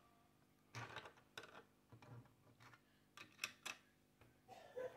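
Faint, scattered light taps and clicks of a plastic toy doll being handled on a toy bed, with a sharper click about three and a half seconds in.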